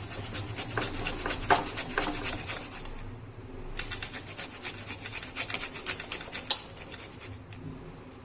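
A piece of fresh ginger being grated on a hand grater: quick, repeated rasping strokes, with a short pause about three seconds in.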